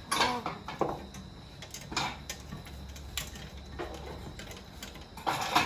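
Spoon clinking and knocking against a jug while brewed Thai tea is mixed with condensed milk: scattered light knocks, with a louder cluster near the end.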